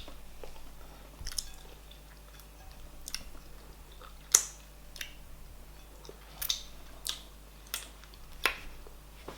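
Close-miked chewing and eating of soft fufu with oha soup, with a string of short, sharp wet mouth smacks.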